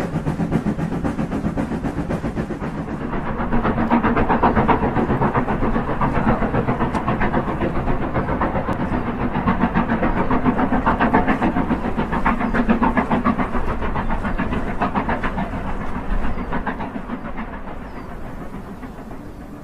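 Steam locomotive working a passenger train across a long railway bridge: a fast, steady run of exhaust beats over a rumble of wheels on the track, fading over the last few seconds as it draws away.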